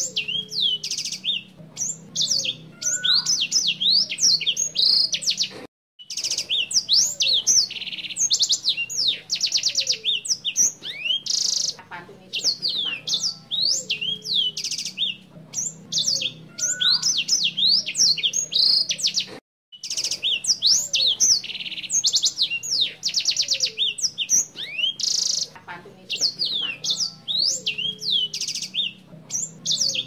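Caged senger singing a long, fast, high-pitched song of rapid chirps, swoops and trills, almost without a break. The song cuts out briefly twice.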